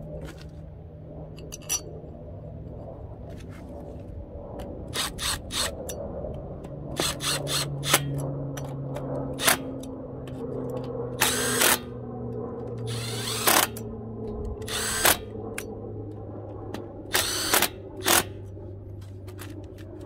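Cordless drill/driver with a hex bit running in short bursts, with a few longer runs, driving in the retaining bolts of a manual locking hub. A steady low hum sits underneath.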